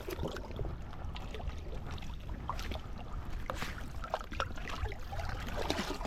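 Sea water sloshing and splashing around a person in the water, with scattered small splashes and clicks over a steady low wind rumble on the microphone.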